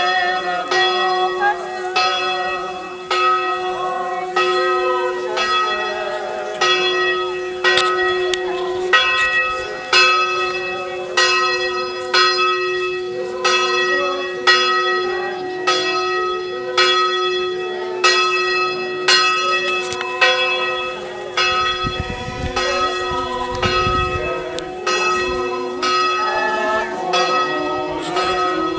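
A single church bell swung in full peal, striking steadily about three times every two seconds, its hum ringing on continuously between the strokes.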